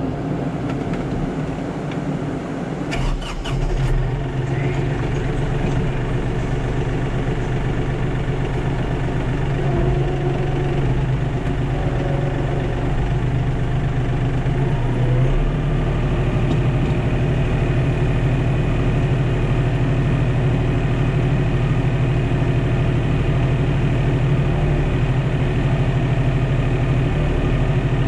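Kioti DK5310 compact tractor's diesel engine running steadily just after starting, with a few clicks about three seconds in. It gets a little louder from about halfway as the tractor drives forward.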